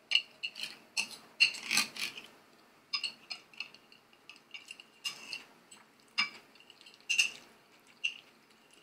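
Metal knife and fork clinking and scraping on a glazed ceramic plate while cutting a fried egg: irregular sharp clicks, each leaving a brief ring from the plate, with the busiest stretch about one and a half to two seconds in.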